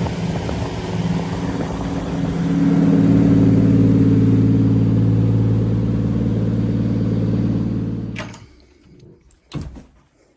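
Toyota 1JZ 2.5-litre straight-six running in the rebuilt JZX100 Chaser, held at slightly raised revs from about three seconds in. The engine sound cuts off about eight seconds in, followed by a couple of short knocks.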